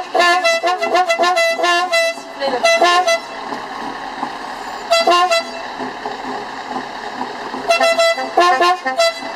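Truck's multi-note musical air horn playing quick runs of short notes at several pitches: a fast phrase over the first three seconds, a brief blast at about five seconds, and another phrase near the end, over the steady running of the truck.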